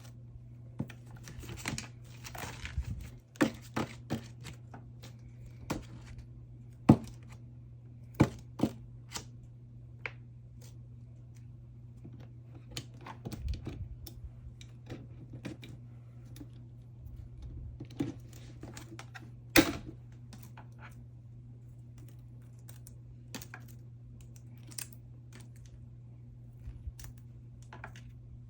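Photocards being slid out of plastic sleeves, with soft rustles of plastic and scattered taps and clicks as cards are handled and set down, a few of them sharper knocks.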